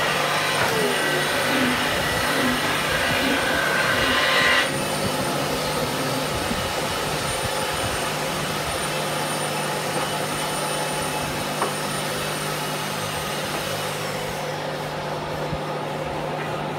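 Steady drone of a running electric motor with a constant low hum, with a hiss above it that drops away abruptly about four and a half seconds in.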